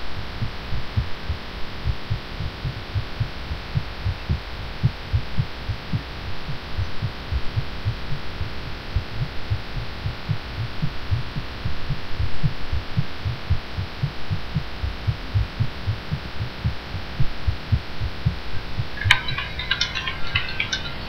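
A woman's heartbeat, fast, picked up close to the chest and heard as a steady run of low, rapid thumps over a faint hum, with her feeling unwell after taking cough medicine. About two seconds before the end, computer keyboard typing clicks in over it.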